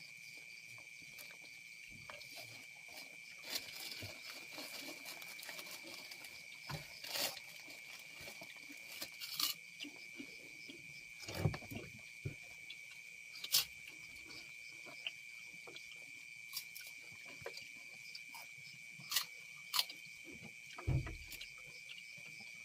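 A steady high-pitched drone of crickets, with scattered crunches, clicks and rustles of people eating rice, salted fish and kerupuk crackers with their hands off banana leaves. There are two dull thumps, one around the middle and one near the end.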